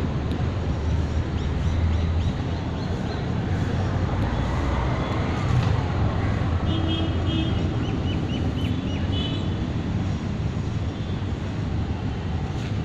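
Steady low rumble of street traffic. From about halfway in, a bird chirps in short repeated notes for a few seconds.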